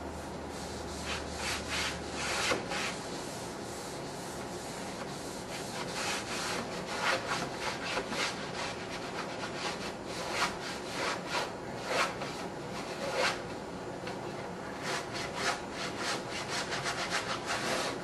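Scouring pad with a mesh screen scrubbing the wet glass of a car's rear window, in runs of quick back-and-forth strokes with short pauses between them, as the glass is cleaned for window tint.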